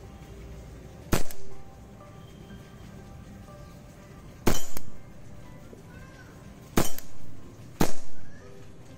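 Hellraiser PM CO2 blowback BB pistol firing four shots at uneven intervals, each a sharp crack with a short tail as the slide cycles.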